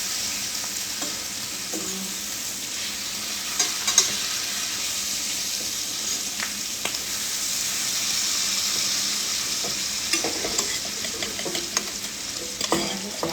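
Bacon frying in a pan: a steady, high sizzle, with a few sharp clicks of a utensil against the pan.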